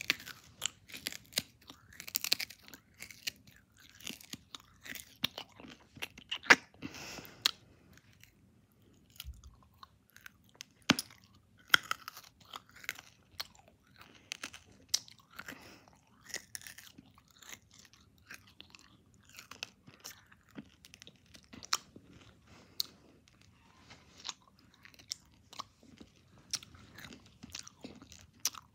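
A Jolly Rancher hard candy being chewed close to the microphone: irregular sharp crunches throughout, with a few louder cracks.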